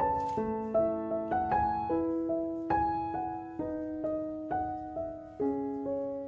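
Background piano music: a gentle melody of single notes struck one after another, each ringing and fading.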